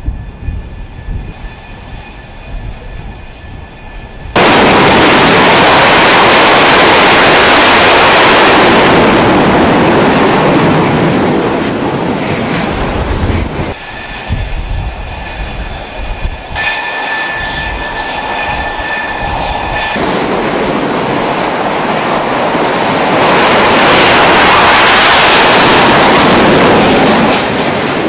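Fighter jet engines on an aircraft carrier deck. A steady high turbine whine is followed about four seconds in by a sudden, very loud jet roar that fades over several seconds. After a cut the whine of running engines returns, and near the end a jet takes off on afterburner with another loud roar.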